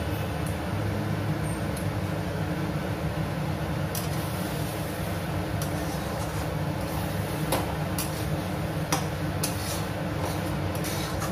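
A few light clicks and clinks of metal kitchen utensils against a steel kadai and plate, the loudest two a little past the middle, over a steady low hum.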